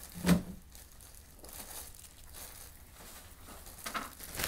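Clear plastic packet of compression stockings being torn open and crinkled, with rustling of the stockings and paper gown. A single sharp bump right at the start is the loudest sound.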